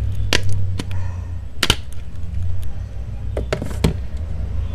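Plastic back cover of a Samsung Galaxy Note II being pressed onto the phone, giving about six sharp clicks spread unevenly, as its retaining clips fail to seat because the cover is on wrong. A steady low hum runs underneath.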